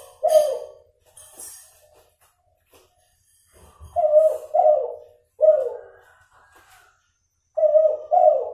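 F2 hybrid derkuku (spotted dove, Kelantan line crossed with a cuhu hen) cooing in short phrases: one note right at the start, a three-note phrase about four seconds in, and two notes near the end. Its voice is still nasal, with an uneven number of trailing notes, which the breeder takes as a sign that the cross's voice is not yet clear or consistent.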